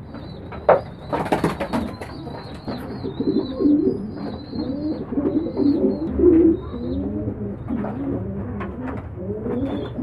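Domestic pigeons cooing, many overlapping coos from about three seconds in. A burst of sharp clattering noises comes about a second in.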